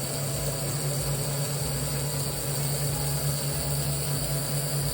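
Wrenn W2205 model locomotive running at full power on a rolling road: its small electric motor and worm drive make a steady, fairly quiet hum, the sign that the former non-runner is working smoothly again.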